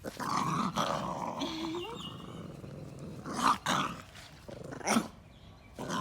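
A puppy growling, with two short, louder outbursts about three and a half and five seconds in.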